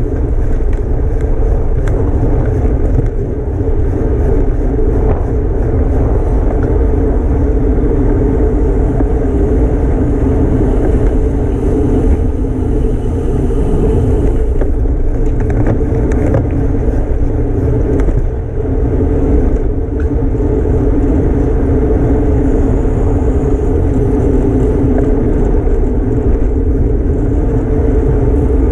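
Wind rushing over the microphone of a camera on a bicycle at racing speed, a steady, loud rumble that dips briefly twice.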